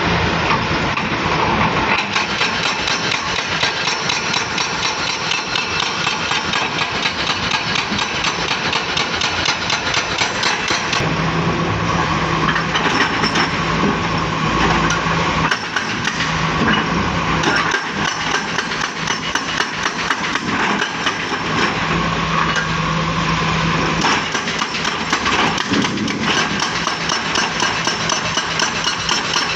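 Volvo excavator's diesel engine running under work, with a fast, continuous metallic clatter over it.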